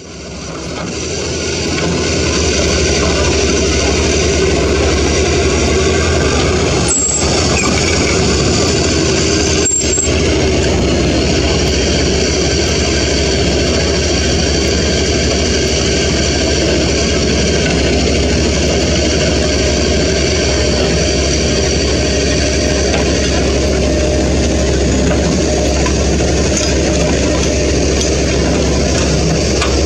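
Diesel dump truck engines running steadily as loaded trucks drive slowly along a dirt haul road, the sound fading in over the first couple of seconds. Two brief sharp clicks are heard about 7 and 10 seconds in.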